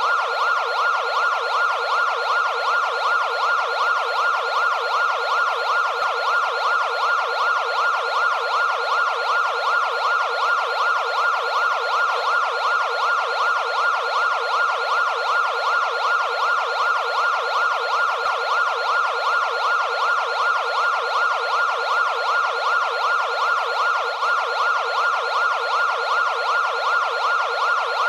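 Emergency vehicle siren sweeping rapidly up and down in pitch, a few sweeps a second, in an even, unbroken cycle.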